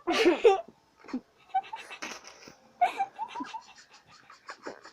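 Children laughing and giggling: a loud voiced outburst at the start, then broken, breathy giggles.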